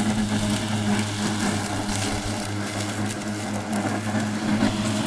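Battery-powered ZIPmow remote-controlled lawn mower running, its motor and spinning blade giving a steady hum.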